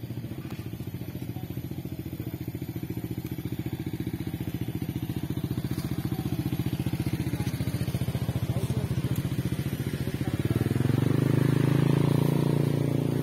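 Motorcycle engine running at low speed close by, with a steady even pulsing; it grows louder about ten seconds in and stays loud toward the end.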